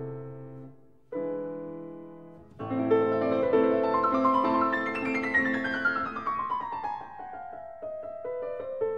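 Background piano music: a chord fades out, a new chord is struck about a second in, then a flowing passage starts with a long descending run of notes.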